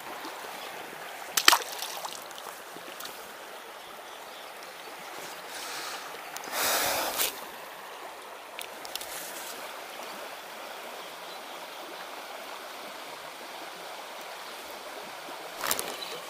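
Shallow river running over a riffle: a steady rush of flowing water. A sharp click comes about a second and a half in, and a brief louder rush about seven seconds in.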